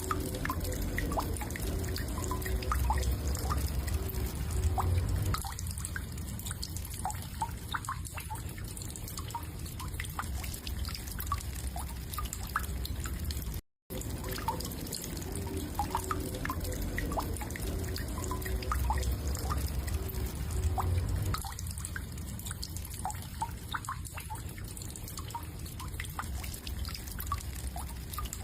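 Woodpecker tapping: short, scattered knocks at an irregular pace over a low hum. The sound cuts out briefly about 14 seconds in, then the same passage starts again.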